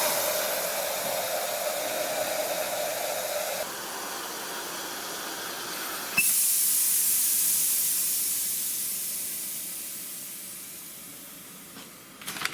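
Car fuel injectors on a cleaning and test stand spraying test fluid, a steady hiss. The sound changes about four seconds in, and a sharp click comes about six seconds in. The hiss then slowly fades away.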